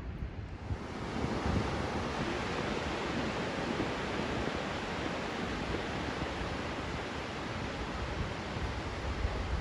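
Ocean surf washing on a beach, a steady wash of noise that builds up about a second in, with wind rumbling on the microphone.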